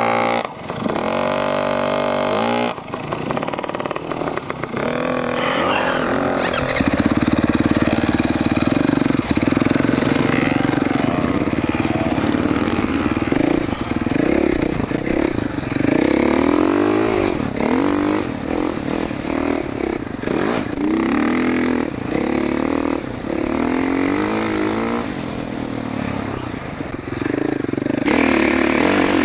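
A 2021 GasGas MC450F's 450cc single-cylinder four-stroke engine riding through sand, revving up and down over and over as the throttle is worked, with a short drop in revs about three seconds in.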